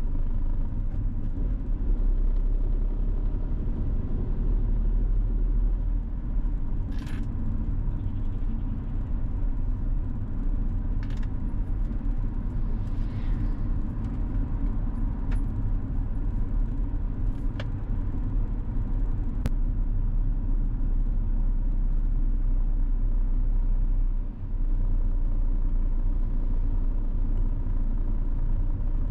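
Steady low road-and-engine rumble of a car driving, with a few brief faint clicks scattered through it.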